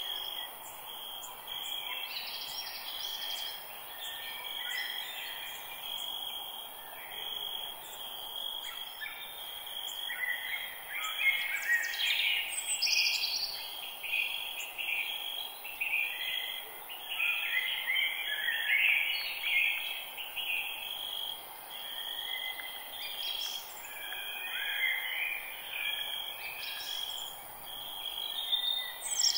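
Forest birdsong: several birds singing and calling at once in short, quick phrases with fast up-and-down notes, over a steady high, evenly pulsing trill and a soft background hiss.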